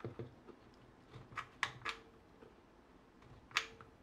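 Light clicks and knocks of a cylindrical battery cell being fitted into the copper-faced jaws of a plastic quick-release bar clamp, a handful of faint scattered clicks with the sharpest about three and a half seconds in.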